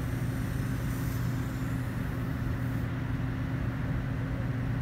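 Steady mechanical drone with a constant low hum under a broad hiss: shop machinery running.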